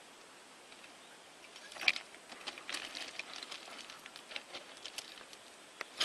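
Irregular light clicks and crunches on a bank of loose stones, starting about a second and a half in, with one louder crack just before two seconds in, over faint outdoor background.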